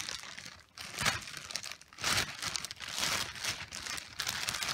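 Packaging crinkling and rustling in uneven bursts as an item is unwrapped by hand, with a little tearing.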